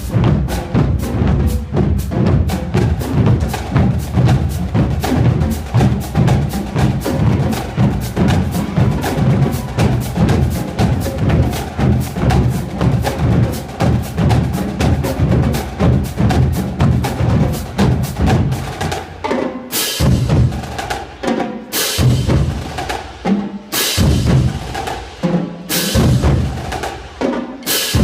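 High school marching drumline playing a fast cadence, with dense rapid snare and drum strokes over pitched bass drum notes. About two-thirds of the way through it breaks into loud accented hits roughly every two seconds, with shorter figures between them.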